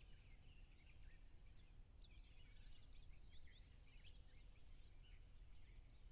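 Faint birdsong: many short, high chirps and quick sweeping calls from several birds, busiest in the middle, over a low steady rumble.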